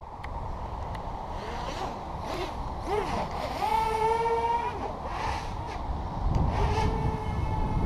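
Racing quadcopter's brushless motors and propellers whining in flight, the pitch rising and falling as the throttle changes, over low wind rumble on the microphone.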